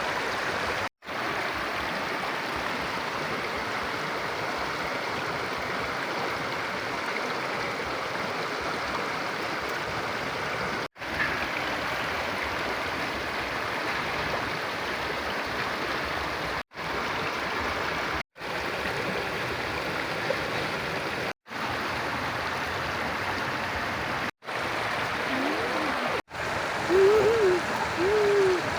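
River water flowing steadily, a constant rushing, cut off for an instant several times. Near the end come a few short rising-and-falling calls.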